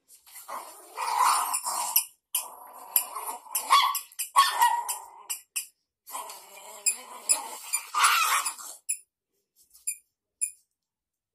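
Puppies play-fighting, growling and yapping in several rough bursts, then falling quiet about nine seconds in.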